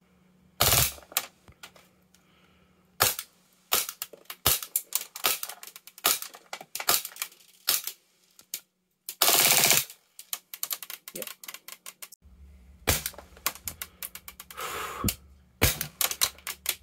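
Armorer Works VX0200 gas-blowback airsoft pistol firing shots in quick, irregular succession into a chronograph, each a sharp crack of the slide cycling. There is one louder, longer burst of just under a second about nine seconds in.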